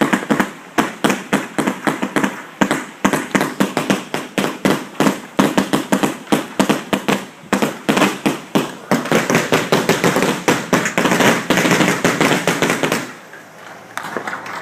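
Fireworks barrage: a dense run of rapid bangs and crackling, many per second, heard close up. It stops abruptly near the end.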